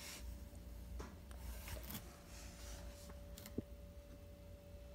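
Faint handling noise: soft rubbing and a few light clicks, with one sharper click about three and a half seconds in, over a faint steady hum.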